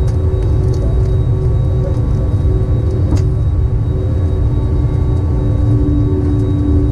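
Airbus A321neo cabin noise on the landing roll: a steady low rumble with a few steady hum tones over it, and a single sharp click about three seconds in.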